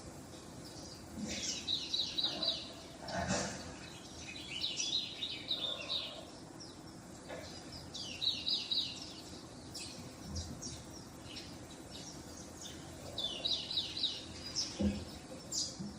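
Bursts of rapid, high-pitched chirping squeaks played from a television showing mice for a cat, coming in clusters every few seconds, with a couple of soft thumps.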